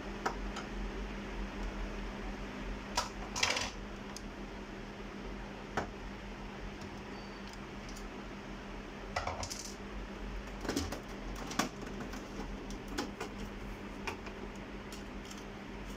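Scattered clicks and light clatter of small metal and plastic parts being handled while an HP Scanjet Enterprise 7500 scanner is taken apart with a screwdriver, with a few quick clusters of knocks. A steady low hum runs underneath.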